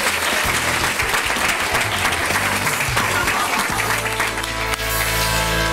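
Audience applauding over live band music, which settles into a held chord near the end.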